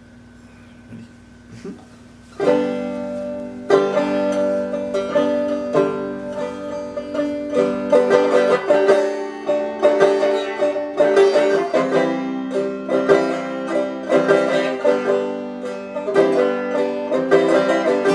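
Acoustic string instruments finger-picking a song intro, starting abruptly about two and a half seconds in after a few quiet seconds with faint clicks.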